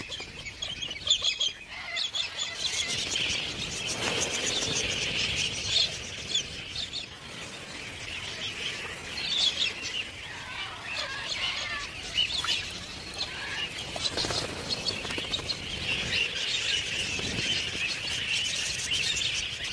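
A flock of galahs calling, many overlapping screeching calls without a break.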